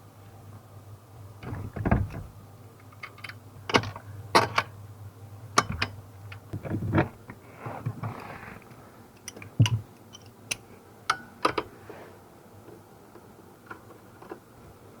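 Irregular clicks, clacks and knocks of hand tools and metal parts as a steering column is refitted into a car. The loudest knocks come about two seconds in and just before the ten-second mark.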